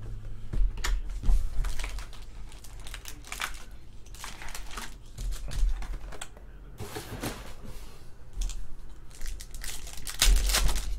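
Plastic wrapper of a trading-card pack crinkling as it is handled and opened, with irregular clicks and taps; the loudest crinkle comes near the end.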